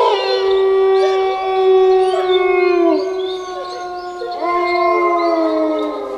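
Several wolves howling together in long, overlapping held notes at different pitches. One howl falls away about three seconds in, and another rises in about a second and a half later.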